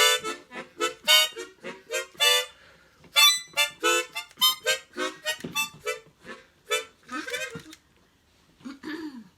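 Harmonica played as a quick run of short notes, stopping shortly before the end.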